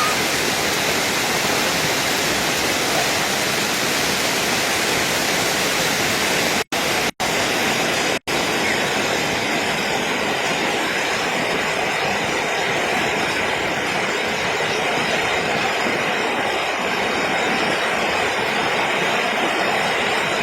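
Heavy rain falling in a steady rushing hiss, cut off three times for a split second about seven to eight seconds in.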